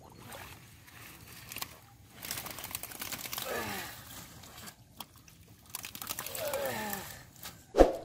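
Shallow muddy water splashing and sloshing as feet and hands churn it and water hyacinth is pulled out, with a sudden loud splash near the end as the hands close on a fish in the mud.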